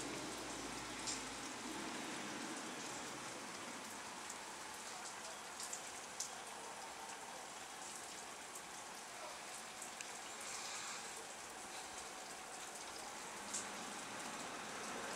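Steady thunderstorm rain, an even hiss, with a few sharp ticks of drops striking close by.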